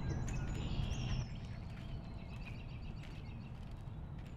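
Outdoor park ambience: small birds chirping and twittering over a low steady rumble, which drops away about a second in.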